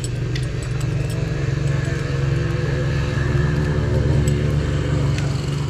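A motor vehicle's engine running steadily, getting a little louder toward the middle and dropping off at the end, with a few faint clicks over it.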